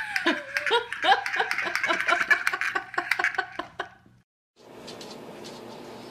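Rapid clicking and clacking from a wheeled pull-toy dog rolling over the carpet, with a person laughing over it. It all cuts off about four seconds in, leaving faint room hiss.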